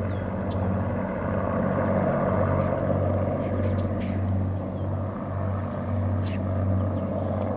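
Four-engine piston propeller aircraft flying past low, its engines making a steady deep drone with a slow, regular throb as the engines beat against one another.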